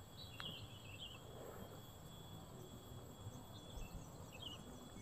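Faint outdoor ambience: a steady high insect drone with a few short bird chirps.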